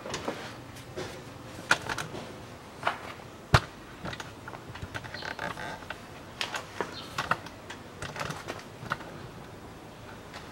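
Irregular metallic clicks and taps of hand tools working the bolts of the shield on a CFMOTO CF500A ATV's front steering knuckle, with one sharp knock about three and a half seconds in.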